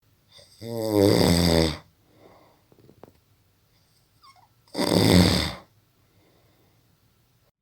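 A person snoring: two loud snores about four seconds apart, each lasting about a second.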